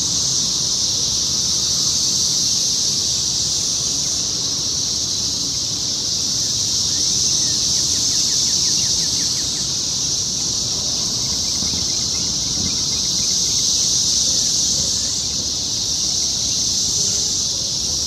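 Dense chorus of 17-year periodical cicadas: a pretty loud, steady, high-pitched droning shrill that swells and eases slowly a few times.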